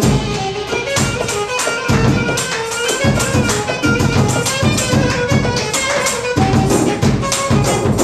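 A small jazz group playing live: reeds, trombone, double bass and drum kit. Constant drum and cymbal strokes run under many short, quick notes, with a strong low bass line.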